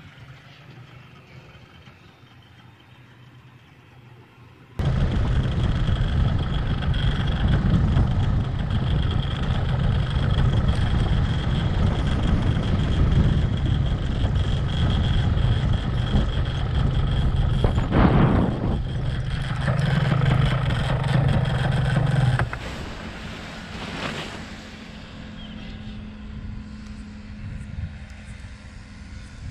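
Paramotor engine and propeller, faint at first, then suddenly loud and steady from about five seconds in, with wind noise mixed in. About 22 seconds in it drops sharply to a quieter, steady running tone: throttled back to idle after landing.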